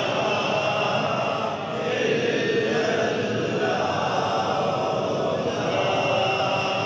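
Male voices chanting a devotional recitation, a continuous steady drone of long held notes with no break.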